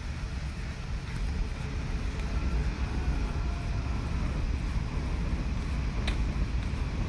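Steady low rumble of wind and rotor wash buffeting a microphone carried on a flying DJI Mavic Air drone.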